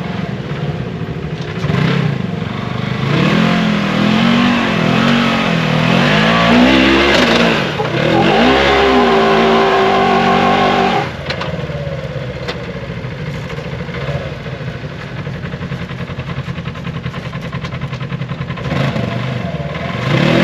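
Off-road vehicle engine revving up and down over and over under load on a rock climb, dropping to a lower steady run about halfway through, then revving again near the end.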